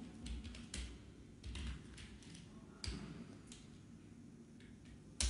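Faint, scattered clicks and taps of a computer keyboard and mouse, with a sharper click near the end.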